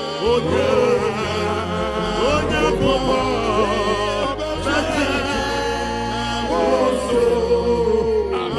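Worship music: a singing voice with wavering, ornamented lines over sustained bass notes, in the style of a Ghanaian gospel chorus.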